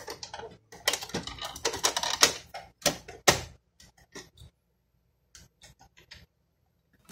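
Rapid run of plastic clicks, taps and knocks from hands handling the carriage and casing of an opened inkjet printer, the loudest knock a little past three seconds in. After about four and a half seconds it thins to a few scattered clicks.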